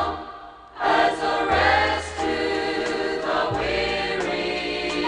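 Choir singing a gospel song with instrumental backing and a steady bass; the music thins out briefly under a second in, then comes back in full.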